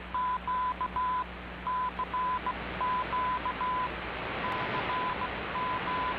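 Morse code beeps, a single mid-pitched tone keyed in dots and dashes as the station's CTDX call, received on a Racal RA-17 valve shortwave receiver. The signal is weak and sits under steady shortwave static hiss with a low hum.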